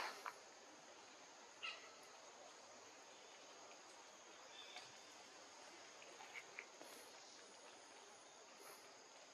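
Near-silent forest ambience: a faint, steady high-pitched insect drone, with a few soft clicks or rustles, the clearest at the start and about a second and a half in.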